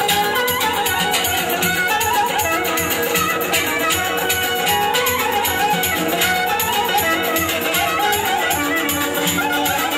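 Live band playing an instrumental traditional dance tune: a clarinet carries a wavering, ornamented melody over a frame drum and electric guitar, with a steady beat.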